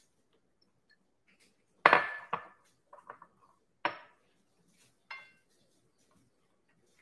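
Utensils clinking and clattering against dishes in a handful of separate strikes. The loudest comes about two seconds in, and the last, near the end, rings briefly.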